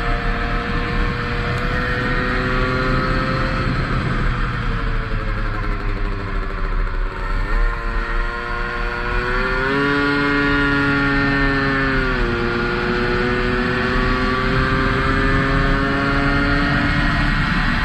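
Tomos 50 cc two-stroke racing moped engine at high revs, heard onboard. Its pitch falls as it slows into a corner, then rises as it accelerates out; about twelve seconds in the pitch drops suddenly at an upshift and climbs again.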